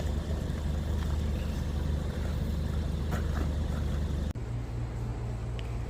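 Vehicle engine and road noise, a steady low rumble. About four seconds in it cuts off abruptly and a different, slightly quieter low hum takes over.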